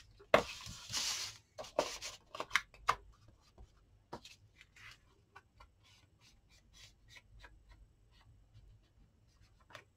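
Small ink applicator dabbed and rubbed along the cut edges of a paper card to colour any white showing: a run of short, scratchy rubbing strokes, louder and busier in the first three seconds, then lighter and sparser.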